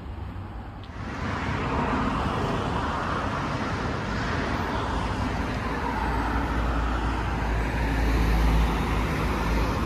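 Jet airliner passing low overhead: its engine noise swells about a second in and stays loud, with a deep rumble strongest in the last few seconds.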